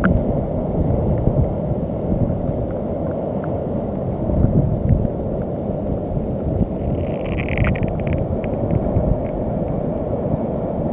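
Sea water washing and sloshing at the edge of a rocky tide pool, a steady low rush, with a brief higher splash or rattle about seven seconds in.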